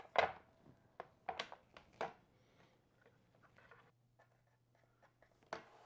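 Sharp clicks and knocks of a Makita plunge track saw being set down and handled on its aluminium guide rail, with faint scraping between them.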